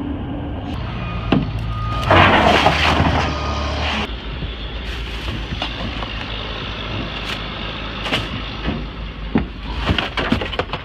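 Road and engine noise inside a moving vehicle: a steady low rumble, with a louder rush of noise for about two seconds starting about two seconds in, and a few light clicks and knocks.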